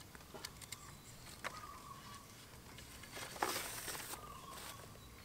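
Green bamboo stick being split lengthwise by hand: a few faint cracks, then a brief splintering crackle about three and a half seconds in.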